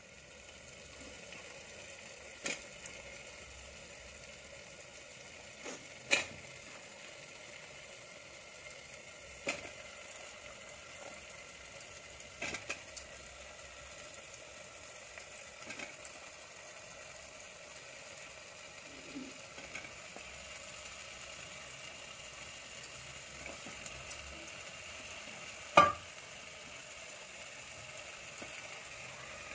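Potatoes and masala frying in a pressure cooker pot on a gas stove, giving a faint steady sizzle. A steel spoon stirring them clinks against the pot every few seconds, the loudest clink near the end.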